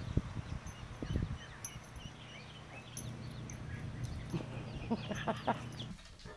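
A small downy chick peeping over and over in short, high peeps, with a few low thumps in the first second or so.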